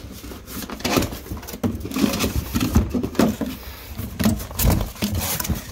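Cardboard boxes of Cat6 network cable being handled, with a hand working at one box's opening: an irregular run of scrapes, taps and knocks.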